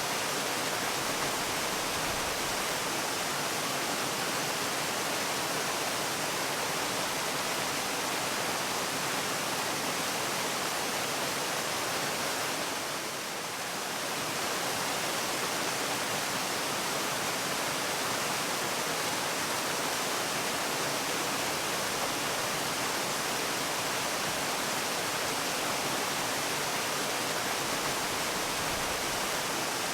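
Waterfall: the steady rushing of falling water, dipping slightly in loudness for a moment about halfway through.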